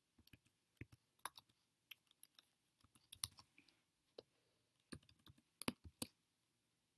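Computer keyboard typing: a scattered run of soft, quiet keystrokes, stopping near the end.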